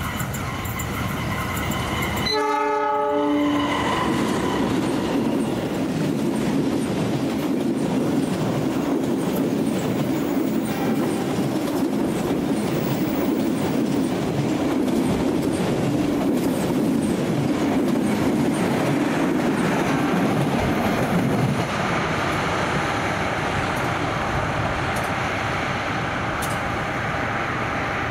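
A locomotive horn sounds briefly about two seconds in. Then comes the steady rumble and clickety-clack of a passenger train's coaches rolling past, which eases off after about twenty seconds.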